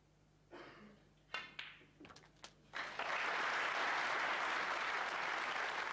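Snooker cue striking the cue ball and balls clicking against each other, followed about three seconds in by audience applause that carries on steadily.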